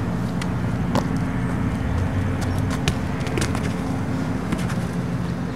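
Soccer ball being kicked and bouncing on asphalt: a scatter of sharp knocks, the clearest about one second in and near the middle. Under them a vehicle engine runs steadily, fading near the end.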